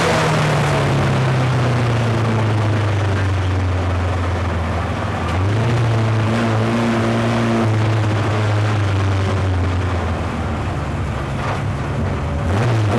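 Ford Escort folk-race car's engine heard from inside the cabin, its pitch falling as the car slows. It then runs low and steady, with a sharp rise in revs about five seconds in and a short one near the end.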